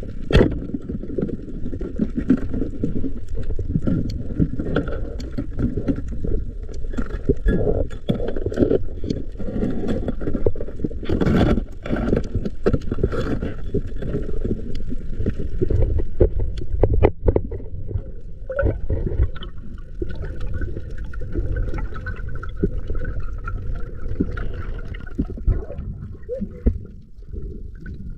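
Muffled water sloshing and gurgling, with scattered sharp clicks and knocks.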